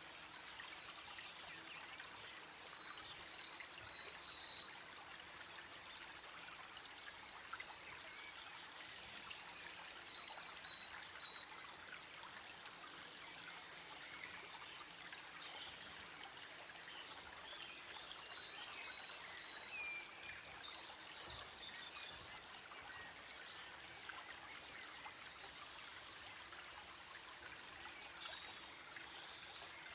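Faint steady rushing, like a flowing stream, with scattered short high chirps over it.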